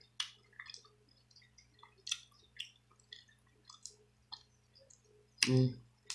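Boiled blue crab being cracked and picked apart by hand in butter sauce: a run of small clicks, cracks and wet squishes, with a brief hum from the eater about five and a half seconds in.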